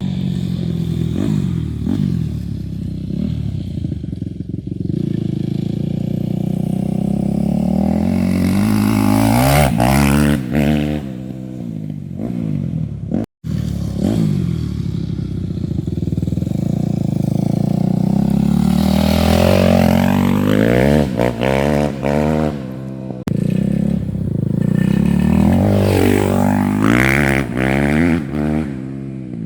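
Yamaha YZ250F's 250 cc four-stroke single-cylinder engine being ridden hard, revving up and falling back again and again through the gears. The sound cuts out for an instant about 13 seconds in.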